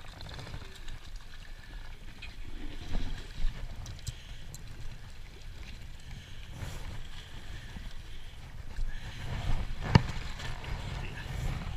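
Steady low rumble of a small outboard-powered boat on the water, with a few light handling clicks and a single sharp knock near the end.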